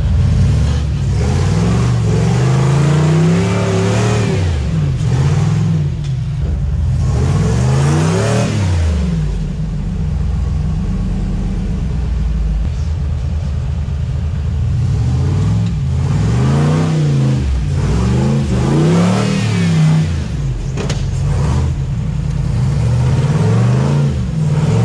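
An off-road vehicle's engine is revved up and down over and over, its pitch climbing and dropping every second or two, with a steadier stretch in the middle.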